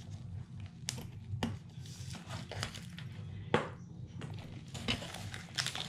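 Clear plastic cellophane wrapper on a stack of cards being handled and pulled open: scattered crackles and rustles, the sharpest about one and a half seconds in and again about three and a half seconds in.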